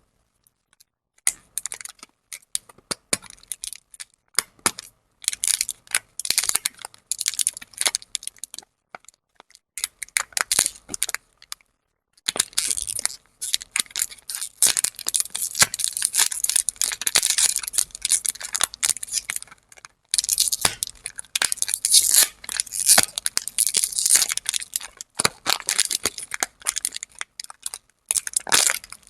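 Plastic lollipop wrappers crinkling and tearing as lollipops are unwrapped and handled, in short bursts of crackling, then longer unbroken stretches in the second half.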